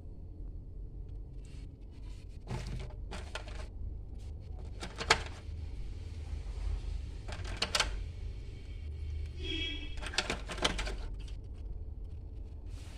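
Plastic facial-massager attachment heads and their moulded plastic tray handled: scattered clicks and taps as the heads are pulled out and knocked together, the sharpest about five seconds in, over a steady low hum.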